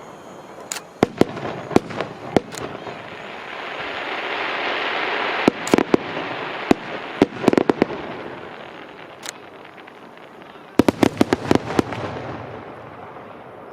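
Aerial fireworks shells bursting in three quick clusters of sharp bangs, with a rushing hiss that swells and fades in the middle.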